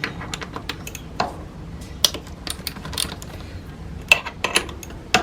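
Irregular metallic clicks and taps of a hex socket and wrench undoing the bicycle crank's centre bolt, with a few louder knocks about two, four and five seconds in.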